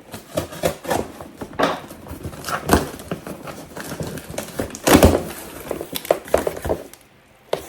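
A package being opened and handled: crinkling and rustling of packaging with scattered knocks and thuds, the loudest about five seconds in.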